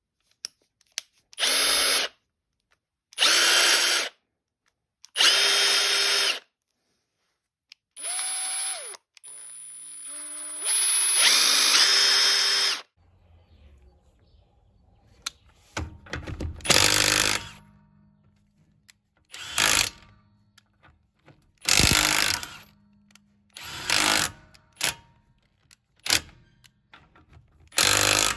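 Milwaukee 2861 cordless impact wrench run in a string of short trigger pulls, each about a second long with a steady motor whine. A longer run near the middle steps up in pitch, and the later pulls come shorter and less regular.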